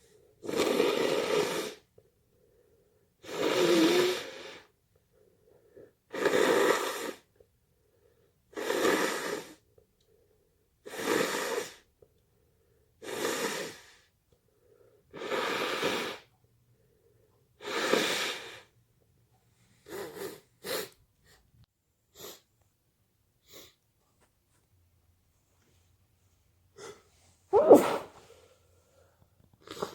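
A person sneezing over and over in a fit: about eight sneezes in a steady rhythm, one every two seconds or so. A few short fainter sounds follow, then one sharp sneeze near the end, the loudest of all.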